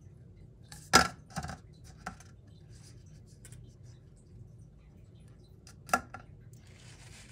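A few sharp clicks and knocks of small hard objects being handled and set down, the loudest about a second in and another near six seconds.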